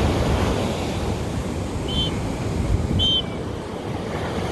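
Sea surf washing onto the beach with wind rumbling on the microphone; two short high chirps sound about two and three seconds in.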